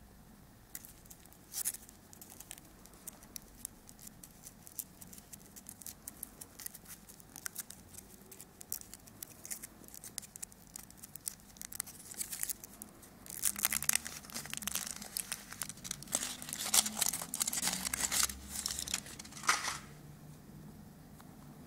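Foil wrapper of a Kinder Surprise chocolate egg being peeled off by hand, crinkling and tearing in many small crackles. The crackling grows louder and busier about two-thirds of the way through, then stops shortly before the end.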